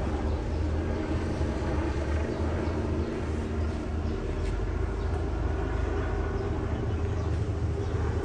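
Steady low engine rumble of idling emergency vehicles, holding an even level with a constant hum.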